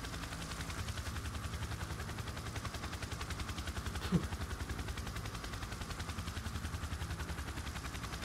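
Helicopter rotor thudding steadily at about ten beats a second, with a short voice-like sound about four seconds in.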